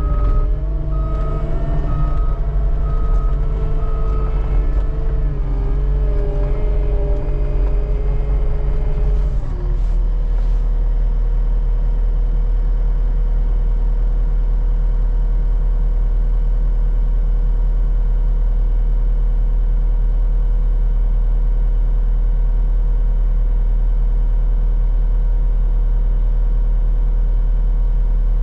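Skid steer engine working, its pitch shifting as it moves and pushes, with a backup alarm beeping for the first few seconds. About nine seconds in, the engine settles into a steady, even hum.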